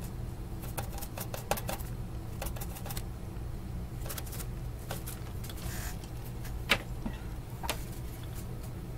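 Small brush scrubbing solder flux off a circuit board, with tissue rustling and scattered light clicks and scratches. One sharper tap comes about two-thirds of the way in, and a steady low hum runs underneath.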